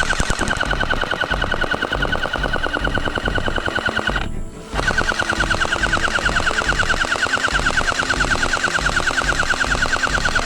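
Background music with a fast, driving rhythm and a rapid rattle, which cuts out suddenly for about half a second a little past the middle.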